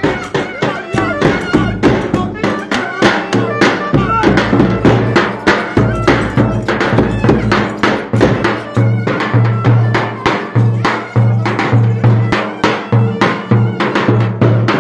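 Traditional Turkish folk dance music with a fast, steady percussion beat over a pulsing bass and a wavering melody line.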